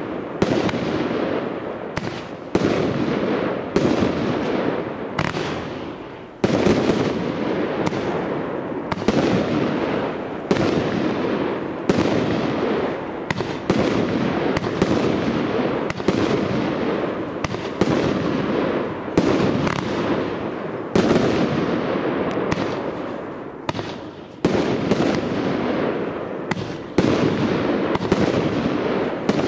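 Spartan 64-shot compound firework cake firing a steady barrage of aerial shells: a sharp report roughly every second, each trailing off in a wash of sound as the next goes up.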